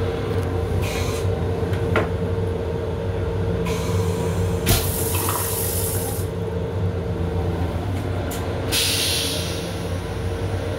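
M7 railcar toilet flushing: water sprays into the stainless steel bowl in several hissing bursts, the strongest about five seconds in, with a sharp click about two seconds in and another near the middle. A steady hum from the running railcar sounds underneath.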